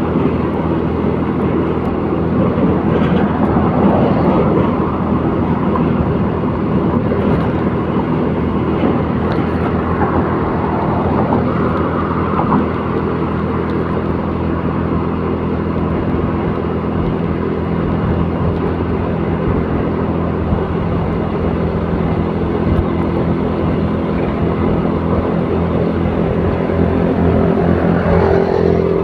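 Motor vehicle driving at a steady speed: engine hum and road noise that stay steady throughout.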